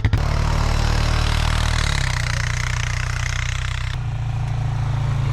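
Four-wheeler (ATV) engine going from idle to running under throttle, with its pitch shifting about two and four seconds in.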